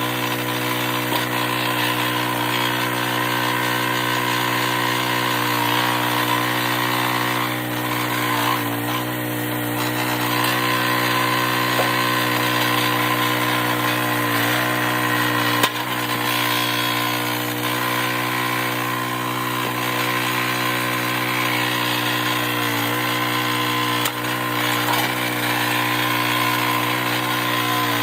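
Small gasoline engine of a hydraulic log splitter running steadily, with a few brief dips in its note and a sharp knock about halfway through.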